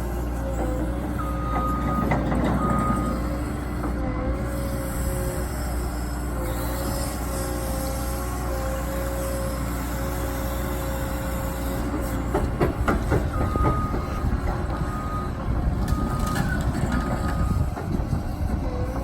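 Heavy earthmoving machine's diesel engine running steadily, its pitch dipping briefly now and then under load. A reversing alarm beeps about once a second, briefly near the start and again for several seconds in the second half, when metallic clanking and rattling also set in.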